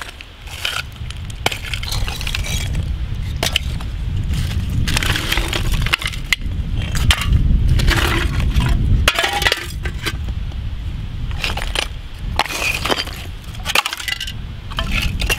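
Broken concrete block chunks clacking and scraping as they are moved by hand through a rubble pile, with old beer cans clinking among them in irregular knocks and clinks. A steady low rumble runs underneath.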